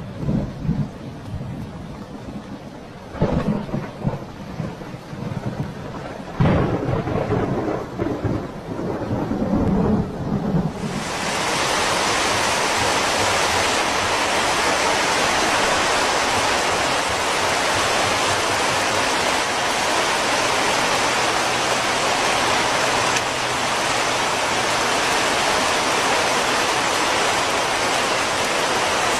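Heavy tropical downpour with thunder. Several loud low rumbles come first, then about a third of the way in the sound changes abruptly to a steady, dense hiss of torrential rain.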